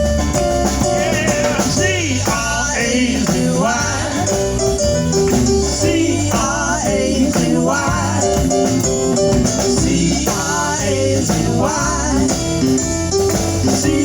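Band playing an instrumental break in a bluesy rock song: a lead line with bends and vibrato over a steady bass and drum groove.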